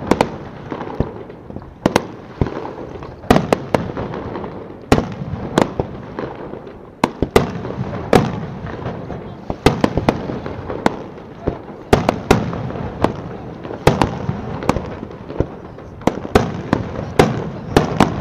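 Aerial fireworks shells bursting in a rapid, uneven string of sharp bangs, often several within a second, over a steady background rumble.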